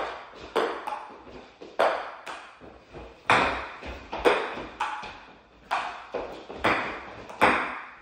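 Table tennis rally: a ping-pong ball clicking sharply off the table and paddles in a steady back-and-forth, a hit every half second to a second, each with a short ring in the room.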